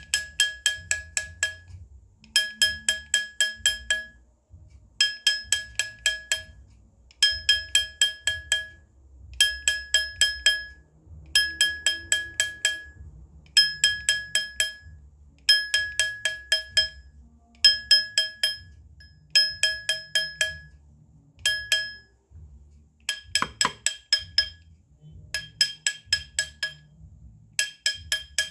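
Small hammer tapping a metal ring on a steel ring mandrel, stretching the ring up a size. The blows come in quick runs of about eight to ten, each run lasting a second or two with short pauses between, and every blow rings with a clear, bell-like metallic tone.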